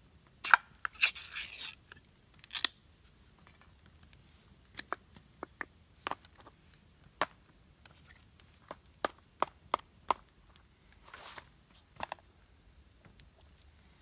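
Ring-pull lid of a SPAM can snapping and tearing open in the first few seconds: a sharp click, a short crackly metal tear, then another click. Scattered light clicks and taps follow as the tin is handled and the meat worked out.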